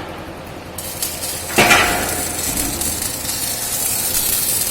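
CO2 MIG welding arc on a pipe. It strikes sharply about a second and a half in, then crackles and sizzles steadily as the weld runs.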